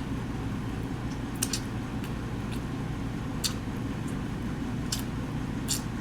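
Eating sounds: a few small, sharp mouth clicks and smacks from chewing fried chicken and rice, over a steady low hum.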